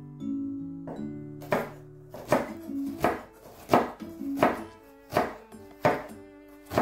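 Knife chopping food on a cutting board, roughly one stroke every 0.7 seconds, over background music.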